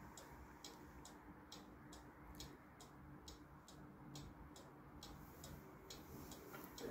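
Near silence, with faint regular ticking, about two ticks a second, over a faint steady hum.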